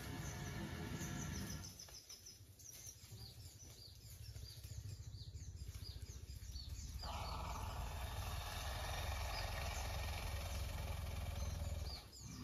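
Forest ambience: small birds chirping over and over, high and brief, over a steady low rumble. A hissing noise comes in suddenly about seven seconds in.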